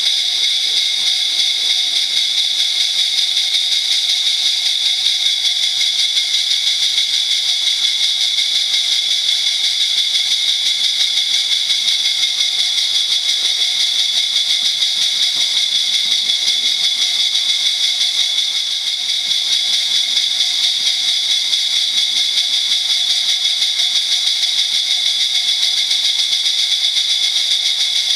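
00 gauge model train running on the layout's track: a steady, high-pitched electric motor whine with a fast, even flutter.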